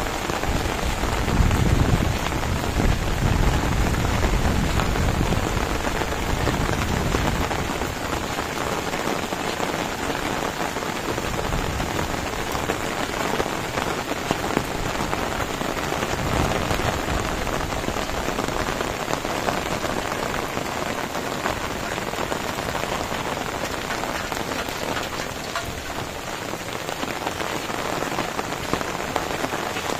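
Heavy rain falling steadily on fields and leafy plants, an even, dense hiss. A low rumble swells under it for the first several seconds, and again briefly about halfway through.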